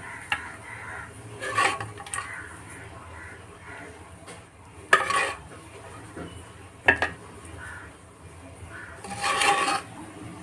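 Steel serving spoon clinking and scraping against a stainless steel plate as thick curry is ladled out, a handful of sharp knocks and short scrapes, the longest scrape near the end.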